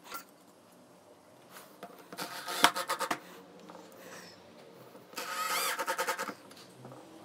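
Cordless drill driving screws into wood, run in two short bursts of about a second each, one around two seconds in and one near five seconds in.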